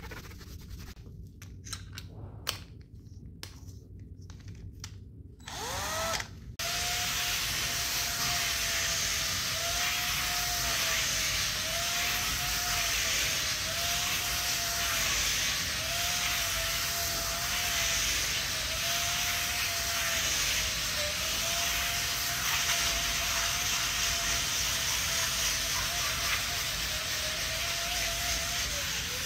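Cordless screwdriver driving a rotary scrub brush against a foam puzzle mat: the motor whines steadily, its pitch dipping and wavering as the brush drags on the mat, over a hiss of bristles scrubbing. It starts about six seconds in, stops for a moment and starts again; before that there are only quieter rubbing and scraping noises of hand scrubbing.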